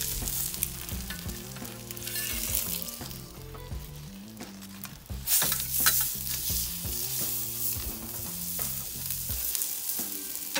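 Whole sea bass sizzling skin-down on an oiled soapstone over a charcoal kamado grill, with a steady frying hiss. The sizzle flares loudly about five seconds in as the fish is shifted with a spatula and tongs. Low background music plays underneath.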